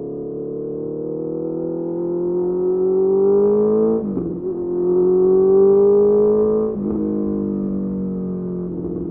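Honda CBR650R's inline-four engine through a Mivv MK3 carbon exhaust, pulling hard under acceleration. The pitch climbs steadily and drops sharply at an upshift about four seconds in. It climbs again, then drops at a second upshift near seven seconds, after which it settles and eases slightly lower.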